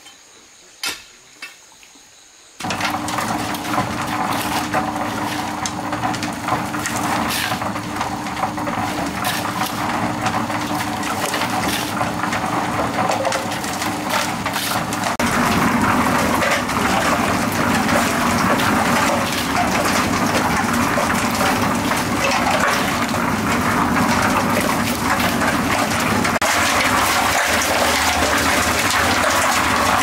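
Water flowing and gushing steadily, starting suddenly about two and a half seconds in after a few faint clicks, with a low steady hum under it for the first half; the flow grows louder about halfway through.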